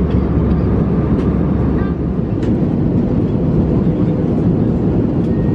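Steady cabin noise of an Airbus A321 in flight: the even, low-heavy noise of the engines and the airflow, heard from a window seat. The deepest part of the noise drops slightly about two seconds in.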